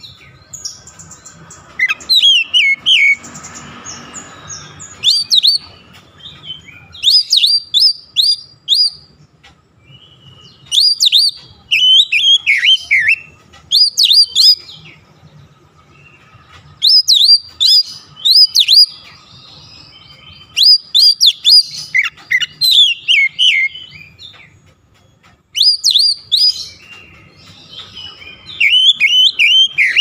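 Oriental magpie-robin singing loudly: bouts of sharp, clear whistled notes with quick pitch sweeps, broken by short pauses of a second or two.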